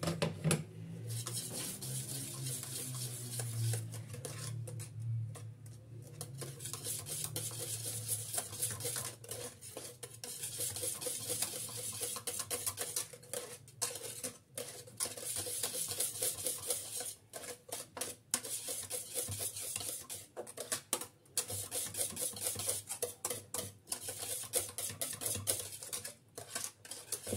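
Wire whisk beating thickened custard cream in an aluminium saucepan: fast, steady scraping and clicking of the wires against the pot, stopping and starting a few times in the second half. This is butter being whisked into the cream just after it has come off the heat.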